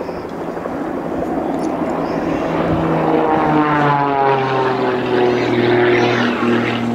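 Pitts Special aerobatic biplane's piston engine and propeller at full power, growing louder, then its pitch falling steadily from about three seconds in as it pulls up into a vertical climb.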